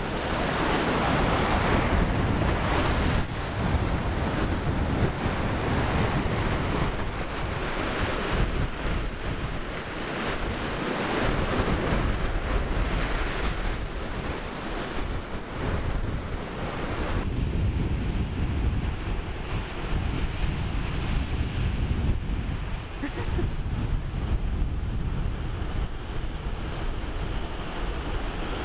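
Ocean surf crashing and surging over rocks, with wind buffeting the microphone in a low rumble.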